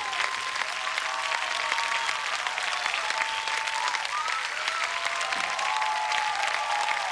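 Concert audience applauding and cheering, with voices rising and falling over dense, steady clapping.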